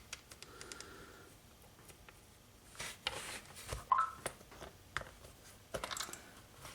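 Light, scattered clicks and scrapes of hands working a plastic RC car wheel onto its hub, with a few louder knocks here and there.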